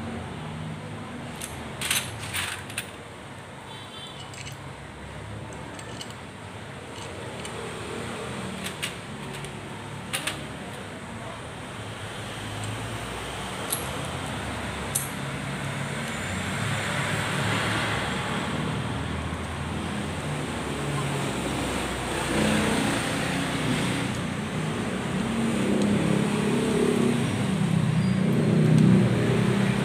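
A few short, light metallic clicks of clutch parts and tools being handled on a motorcycle clutch. Underneath is steady background traffic noise that grows louder over the last several seconds.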